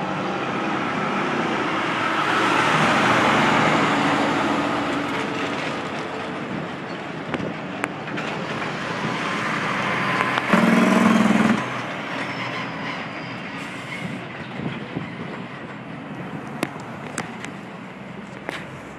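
Street traffic noise as a heavy vehicle rumbles past, swelling to a peak a few seconds in and slowly fading. A little past halfway there is a loud, low blare that lasts about a second. A few sharp clicks come near the end.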